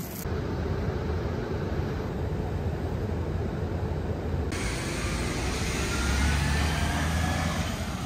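Road traffic: a low, steady rumble of passing vehicle engines, with one vehicle rising in pitch as it accelerates about six seconds in.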